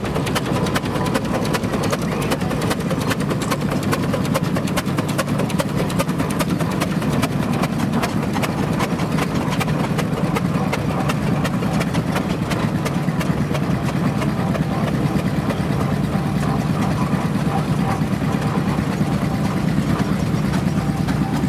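Steam traction engine running as it drives along, a steady rapid clatter of its motion over a steady low hum.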